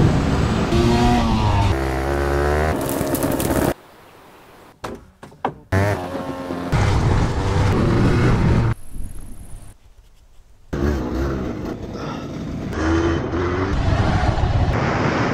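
Yamaha DT125R's 125 cc two-stroke single-cylinder engine running and revving, its pitch rising and falling, in several short clips cut hard against one another, with two quiet gaps, about four seconds in and again around nine to ten seconds.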